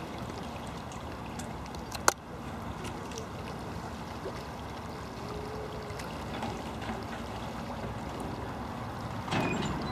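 A passenger ferry's engine running steadily while it lies at the landing stage, with one sharp click about two seconds in.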